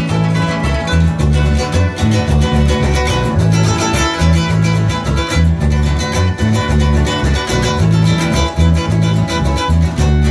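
Live northern Nicaraguan folk dance music played on guitars, with a steady dance beat carried by a plucked bass line.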